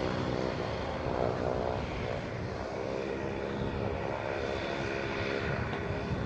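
Shadow microlight's engine and pusher propeller running steadily in flight: an even drone with a broad hiss over it.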